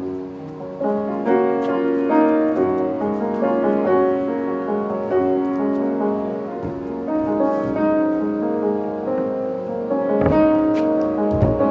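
Piano music playing a flowing melody for a dance, with two low thumps near the end.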